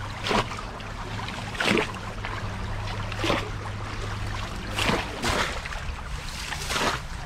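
Water splashing in a shallow stream, about six short splashes roughly a second and a half apart, over a steady low hum.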